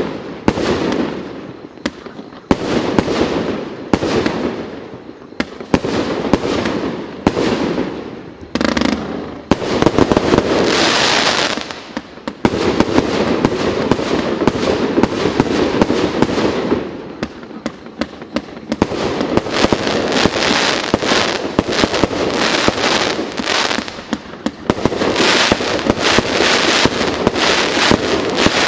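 Multi-shot firework cake 'Les Chudes' firing continuously: rapid launch shots and bursting effects, with crackling going on all the way through.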